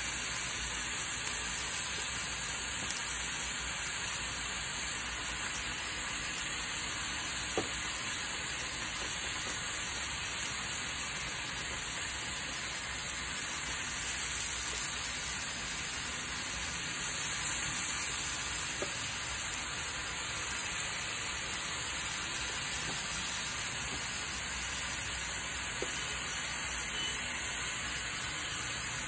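Marinated pork chops sizzling steadily on a hot indoor grill plate, a constant frying hiss with a few faint ticks.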